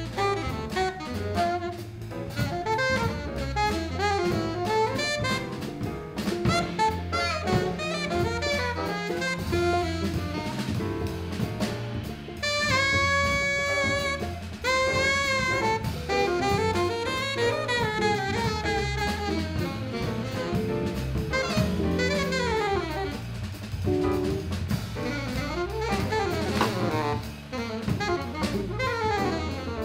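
A jazz band playing a blues live: the alto saxophone leads over grand piano and drum kit. The saxophone holds a long note a little before halfway, then plays fast runs that rise and fall.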